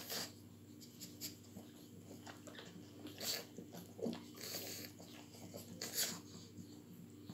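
Pug mother and her ten-day-old puppies snuffling and breathing noisily, with the small wet sounds of the puppies nursing. Short noisy breaths come at the start and again about three and six seconds in.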